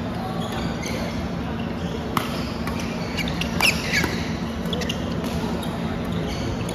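Badminton rally: a few sharp racquet strikes on a shuttlecock, the loudest a little past halfway, with shoe squeaks on the court floor in between, over steady background noise.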